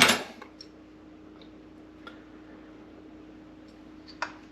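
Faint scattered clicks of small parts being handled, with one sharper click about four seconds in, over a steady low hum.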